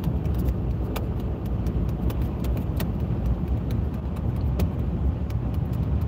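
Steady low road and engine rumble of a car being driven, heard from inside the cabin, with scattered light clicks and rattles.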